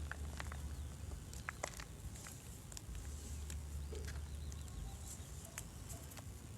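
Gym chalk being crushed: scattered small, sharp crackles and clicks at an uneven pace, over a steady low hum.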